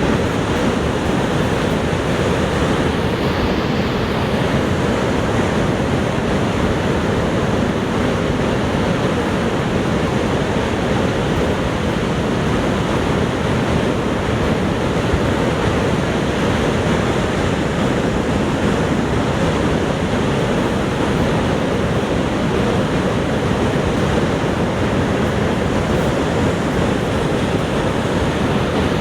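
Niagara Falls: the steady, heavy rush and rumble of the waterfall, an unbroken wall of falling-water noise.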